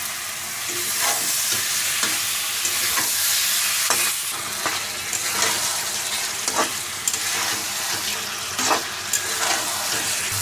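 Potato wedges sizzling as they fry in hot oil and masala paste in a kadhai. A metal spatula stirs them, scraping and clicking against the pan at irregular moments over a steady frying hiss.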